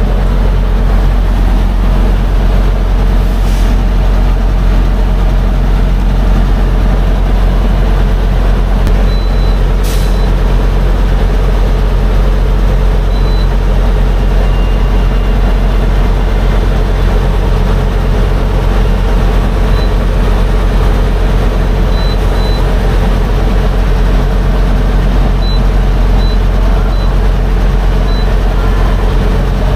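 Tractor-trailer's diesel running at a steady idle, a loud unbroken low drone. Short electronic beeps from the fuel pump's keypad come several times near the end as buttons are pressed.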